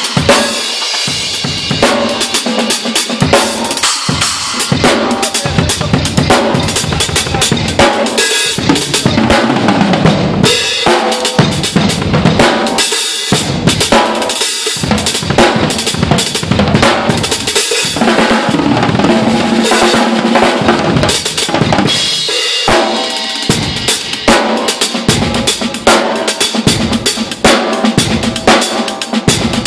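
Acoustic drum kit played solo in a warm-up: fast, dense runs across snare, toms and bass drum with cymbal crashes, broken by a few brief pauses.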